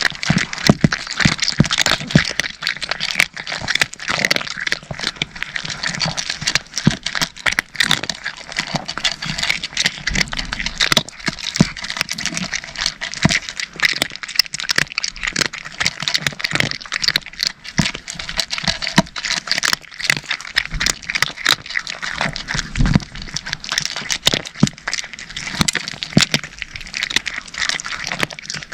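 Cats crunching dry kibble: a dense, irregular run of crisp crunches and clicks as they chew.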